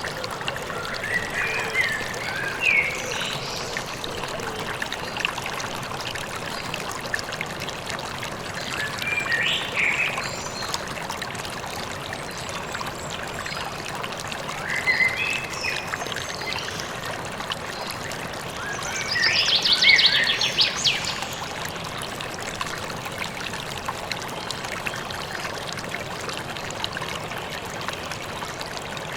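Steady rush of a flowing stream or river, with songbirds chirping in short bursts every few seconds; the loudest is a fast, high trill a little past the middle.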